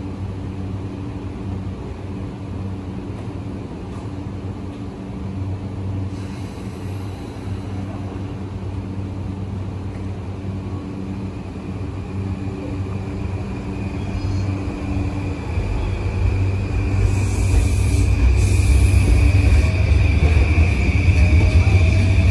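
JR East E235 series 1000 electric train pulling out of the station: a steady low hum while it stands, then, from about fifteen seconds in, the rumble of the wheels grows louder and a motor whine rises in pitch as it accelerates past.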